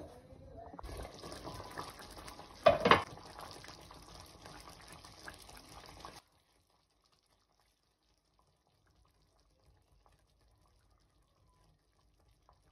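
Creamy sauce simmering in a frying pan: a steady bubbling hiss with one loud knock about three seconds in. The sound stops suddenly after about six seconds, leaving near silence.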